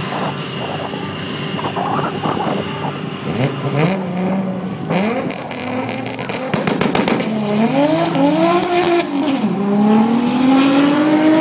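Toyota Supra's 2JZ turbocharged inline-six drag car revving at the start line, with a run of sharp crackling pops from the exhaust about halfway through. It then launches and pulls hard, the engine pitch climbing and dropping back twice as it shifts up through the gears.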